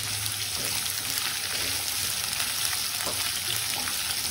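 Chopped onion, bottle gourd, carrot and drumstick sizzling steadily in hot mustard oil in a kadai while a silicone spatula stirs them around the pan.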